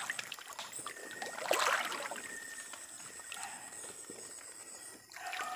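Shallow river water splashing and sloshing as someone moves through it, with a louder splash about a second and a half in. A faint steady high-pitched tone runs underneath.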